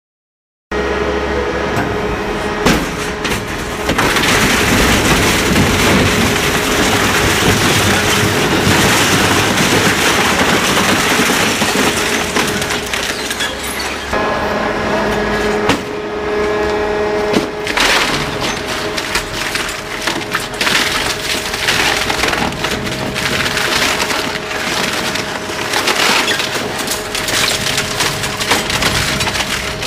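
A twin-shaft industrial shredder runs under load, its cutter discs tearing and crushing material with continuous cracking and splintering over a steady drive hum. The sound starts abruptly after a brief silence at the very beginning.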